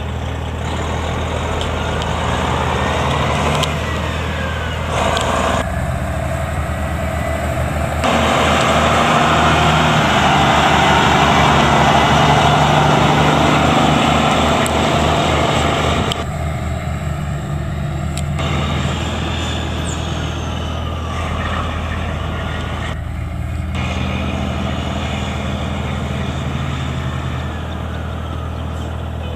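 A 1998 Kenworth T800's Detroit Diesel Series 60 12.7-litre inline-six diesel running steadily at idle. It is louder for several seconds in the middle, with a rapid low pulsing.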